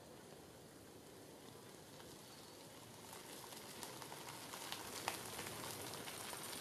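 Faint crackling and light clicks from handling of a handheld camera, over a low hiss; the clicks start about halfway in and grow denser and a little louder.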